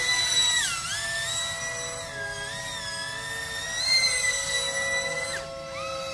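Hobbywing 2405 2850kv brushless motor spinning a four-blade 5-inch pusher propeller on a small electric RC stunt plane, whining at high pitch with throttle changes: the pitch dips and recovers about a second in, climbs a step around four seconds, then cuts off abruptly and winds back up just before the end.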